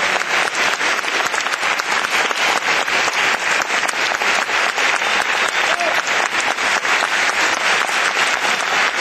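Audience applauding: dense, steady clapping that runs on without a break.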